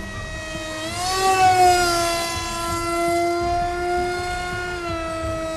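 Motor of a flying foam RC jet model, a high steady whine that rises in pitch and gets louder about a second in, as the throttle comes up, then holds steady and dips slightly near the end.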